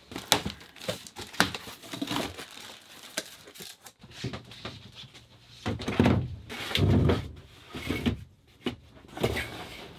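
Knocks, scrapes and thuds of a heavy lithium battery being lowered into a wooden locker and shifted into place, with the heaviest thuds about six to seven seconds in.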